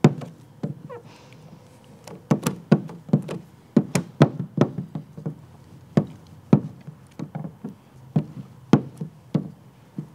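Irregular sharp taps and knocks, about three a second, with a short lull near the start, from hard tools and hands working paint protection film onto a car headlight.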